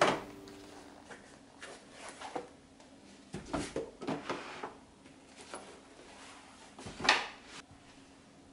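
Plastic storage boxes and a binder being set down and slid on a wooden shelf: scattered light knocks and scrapes, the loudest knock about seven seconds in.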